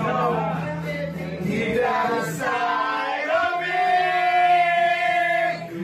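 Several people's voices together, chanting and shouting in chorus, then about three seconds in a long, high cry held on one pitch for about two seconds, breaking off near the end.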